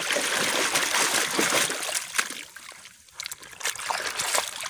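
Muddy water splashing and churning as a hand scrubs a mud-caked toy vehicle under the water, with small knocks of the toy. The splashing eases about three seconds in, then picks up again.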